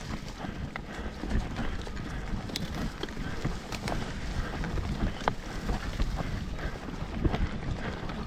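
Mountain bike rolling over a rough trail: a steady rumble from the tyres with many irregular clicks and knocks as the bike rattles over rocks and roots, and wind on the microphone.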